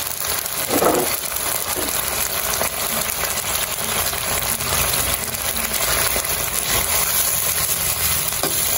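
Canned sardines in tomato sauce with onions sizzling steadily in a wok, with a brief knock about a second in.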